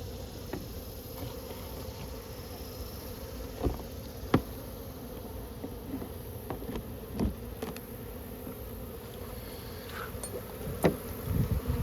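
Honeybees buzzing steadily in a hum, with a few short light knocks scattered through.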